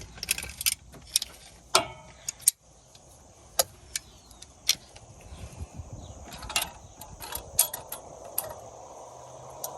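Hand tools clinking and clicking against a truck's sway bar link in irregular sharp metallic knocks, a few with a short ring, as someone tries to turn the link's fastener. The link is seized and won't come off.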